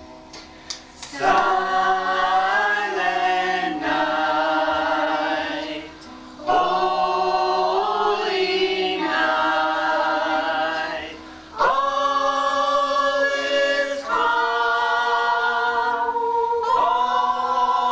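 A family group of adults and children singing a Christmas song together a cappella, in long held phrases that start about a second in, with short breaks for breath about six and eleven seconds in.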